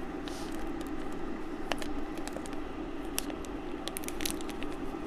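Scattered light clicks and crackles of kitchen items being handled, over a steady low hum.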